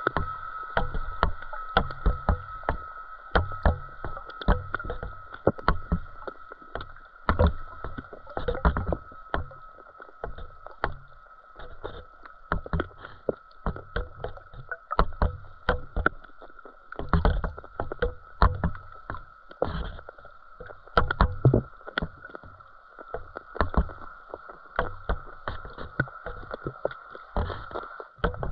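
Muffled underwater sound picked up by a GoPro suspended in lake water: irregular clicks and knocks several times a second and low thumps, over a steady high hum.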